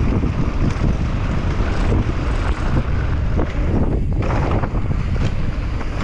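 Wind buffeting the camera microphone during a fast mountain-bike descent, with the knobby tyres rumbling over dirt and the bike rattling over bumps in irregular knocks.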